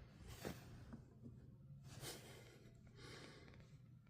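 Near silence: faint room tone with a few very soft ticks.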